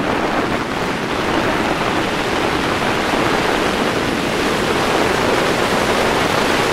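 Strong storm wind blowing on the microphone: a loud, steady, even noise.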